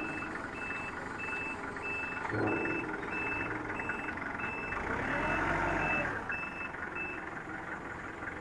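Forklift's reversing alarm beeping steadily, about three beeps every two seconds, over the forklift's running engine. The beeping stops about seven seconds in, and the engine grows louder for a moment around five seconds in.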